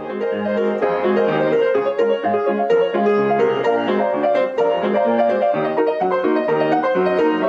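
Outro music: a piano piece played in quick, even notes.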